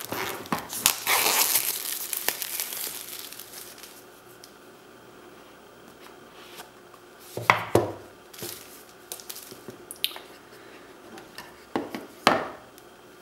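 Plastic wrapping on an iPhone 5 box being torn and crinkled off for the first few seconds, then fading. After that, a few short rustles and light knocks as the packaging is handled.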